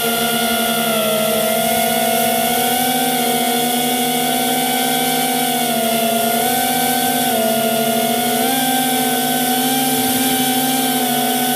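FPV quadcopter drone's motors and propellers whining steadily, the pitch stepping slightly up and down several times.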